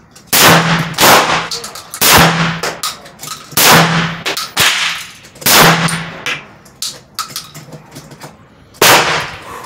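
Rock Island Armory VR80 12-gauge semi-automatic shotgun firing a string of loud shots, about six, irregularly spaced with longer gaps toward the end. The gun cycles each round without jamming while it is being broken in.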